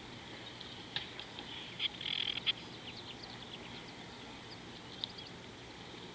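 Short high-pitched chirps and clicks from small wild animals, with a dense cluster about two seconds in, over a faint steady high hiss.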